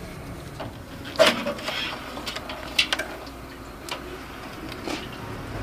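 Scattered sharp clicks and light metallic knocks of hand tools being worked on the motorcycle, about one a second, the loudest a little over a second in.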